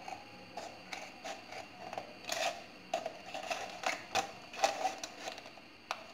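Scissors cutting through a thin plastic bottle: a run of sharp, uneven snips, about two a second.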